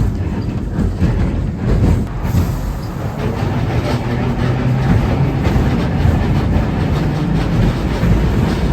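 Streetcar running on its rails: a steady, loud rumble with the clatter of steel wheels over the track.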